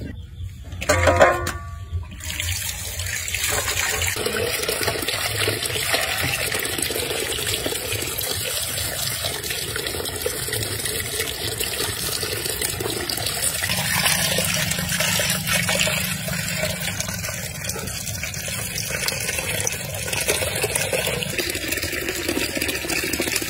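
Water pouring from a pipe into a plastic basin, splashing over a snake carcass as it is rinsed and cleaned by hand. About a second in, before the water starts, there is a brief loud pitched sound.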